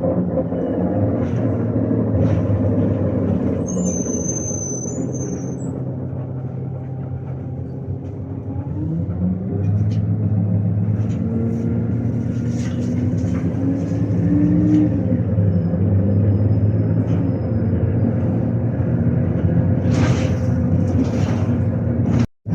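ADL Enviro300 single-deck bus's diesel engine and drivetrain: the bus runs and eases off, then pulls away with the engine note rising in pitch for several seconds. The sound cuts out for a moment near the end.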